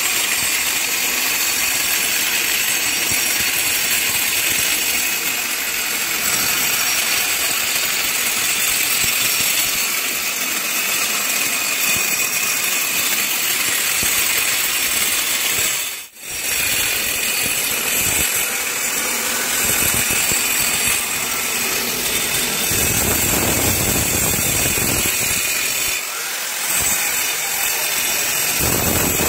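Electric angle grinder cutting a channel into a brick wall for wiring conduit: a steady, high-pitched whine and grinding of the disc in the brick. It breaks off briefly about sixteen seconds in.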